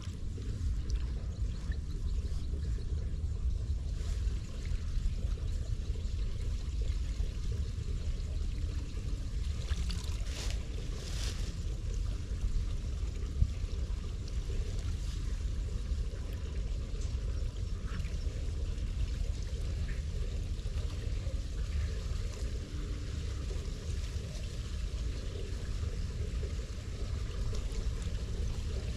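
Floodwater trickling and pouring into a roadside curb drain as hands clear debris from its inlet, over a steady low rumble. A couple of brief sharper splashes come about ten seconds in.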